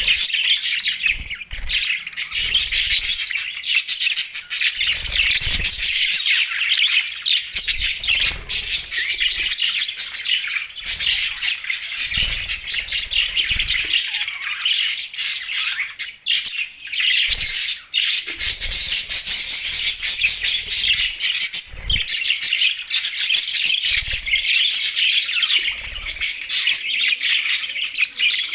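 Budgerigars chattering and chirping continuously in a dense, overlapping warble, with short low thuds every second or two.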